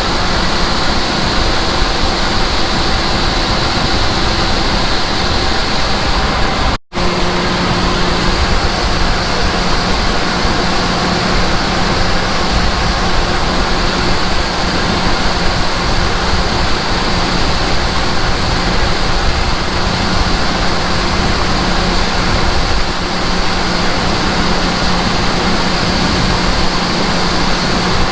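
Combine harvester and tractor engines running steadily in the field: a loud, even rushing noise over a low engine hum. The sound breaks off for an instant about seven seconds in, and a steadier low hum is stronger after the break.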